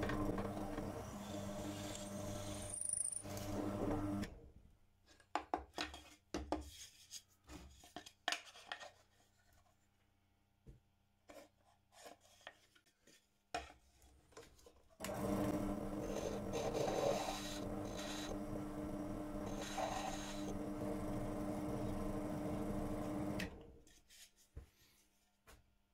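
Steady rasping of wood being abraded in two long spells, with scattered light wooden knocks and clicks in the gap between them.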